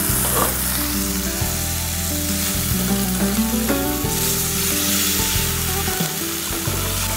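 Cauliflower sizzling in hot oil in a frying pan as it is stirred with a spatula, with background music underneath.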